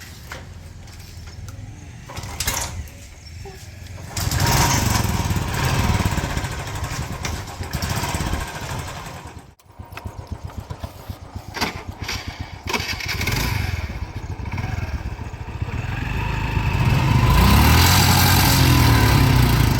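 A small engine running, its pitch rising and falling, with a sudden break about halfway through.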